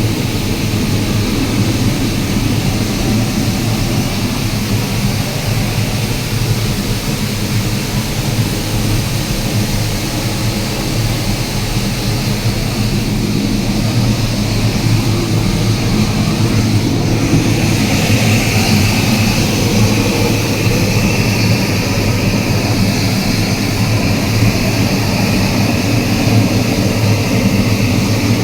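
Wood-charcoal retort furnace firing: a loud, steady roar of burning wood gas with a low hum. About two-thirds of the way through, a brighter hiss joins in.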